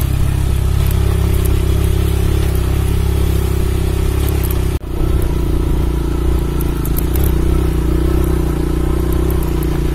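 Motorcycle engine running steadily while riding along a rough dirt road. The sound cuts out for an instant about five seconds in, then carries on as before.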